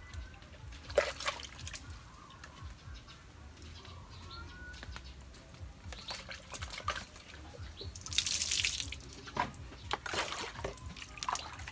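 Water being scooped from a tub with a plastic container and poured over a dog, splashing and dripping, with the loudest pour about eight seconds in.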